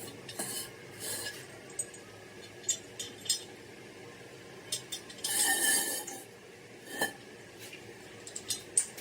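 Hand work on an alloy wheel rim during refurbishment: intermittent rasping and rubbing strokes with short clicks, the longest and loudest scrape about five seconds in.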